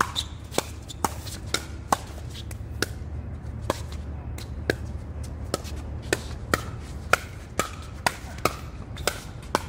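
Pickleball rally: paddles striking the plastic ball in a fast volley exchange at the net, sharp pops about twice a second.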